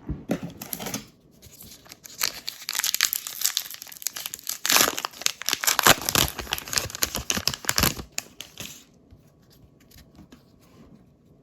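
A baseball card pack wrapper being torn open and crinkled by hand. There is a short rip near the start, then a few seconds of steady tearing and crackling before it dies down near the end.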